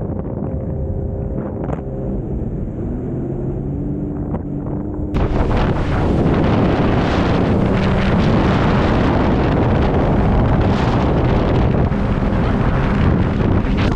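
Sea-Doo personal watercraft engine running steadily at speed, its pitch gliding slightly. About five seconds in the sound cuts to loud wind buffeting the microphone and rushing spray, with the engine still running underneath.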